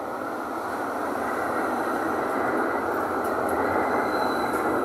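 Metre-gauge tram running into an underground station platform and passing close by: a steady rumble of wheels on rails that grows louder as it approaches, echoing in the station.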